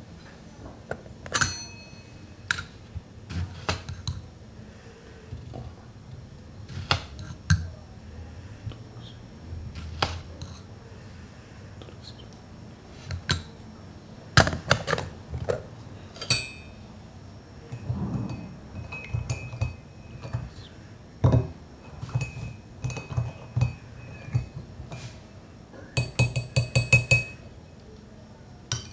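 Tableware being handled at breakfast: a teaspoon clinking against a porcelain coffee cup, saucer and small metal pot, in scattered clinks and taps with a short ring after many of them. Near the end comes a rapid run of clinks, a spoon stirring in the cup.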